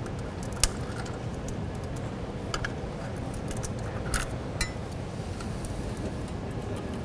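Scattered small clicks and ticks of push-on wire connectors and leads being handled and fitted at the furnace's gas valve, the sharpest about half a second in, over a steady low background noise.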